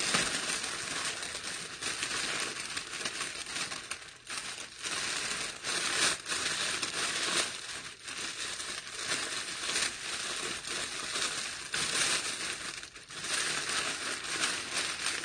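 Close crinkling and rustling of a white delivery bag as it is handled and pulled open, with irregular crackles throughout.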